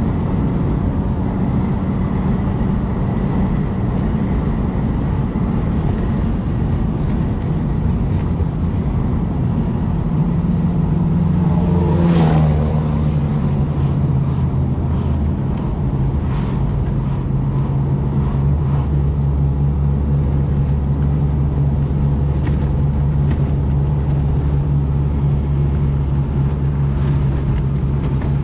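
A car driving, its engine and tyre noise heard from inside the cabin as a steady low drone. About twelve seconds in the engine note swells briefly and falls, then settles at a new steady pitch.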